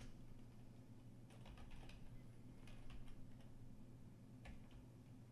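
Faint computer keyboard keystrokes: a few scattered clicks as a short terminal command is typed, over a low steady hum.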